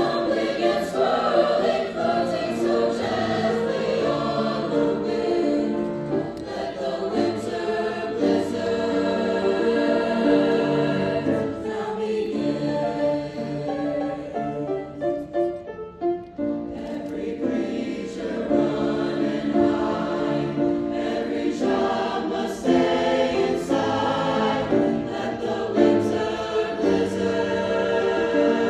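High school choir singing, with a brief drop in level about halfway through.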